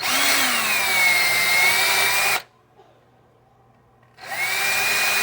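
Power drill spinning a small brush against the electrical contacts of a washer door lock, polishing carbon off them. It runs for about two seconds with a whine that settles a little lower, stops, and starts again about four seconds in.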